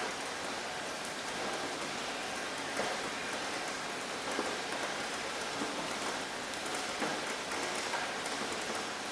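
Steady rain falling on a surface: a dense, even hiss with many individual drops pattering through it.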